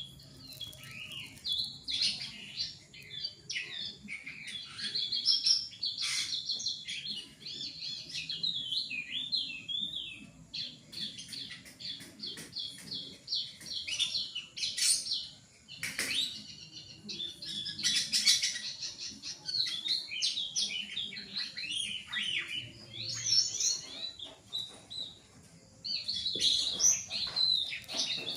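A cucak keling songbird in full song: a long, varied, chattering stream of rapid whistles and trills, with a short lull a little before the end.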